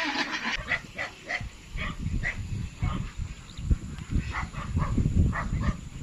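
Short animal calls repeating two or three times a second, over irregular gusts of wind rumbling on the microphone.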